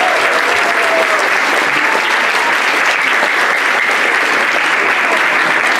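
Audience applauding, a loud, even clapping. The last sung note of the song fades out in the first second.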